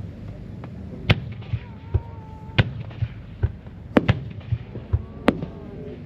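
Aerial firework shells bursting in a display: about nine sharp bangs at uneven spacing, with a few faint gliding whistles between them.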